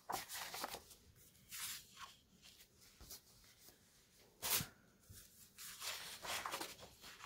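Sheets of scrapbook paper rustling and sliding over one another as they are lifted off a stack and set aside, in several short swishes, the loudest about four and a half seconds in.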